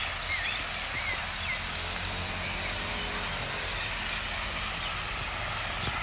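Steady splashing hiss of a pond fountain's spray falling back onto the water, with a few short bird chirps in the first second and a half.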